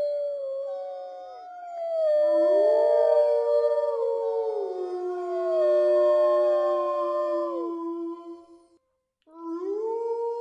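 Several canines howling together: long, overlapping howls that slide slowly down in pitch, with a short break near the end before the howling starts again.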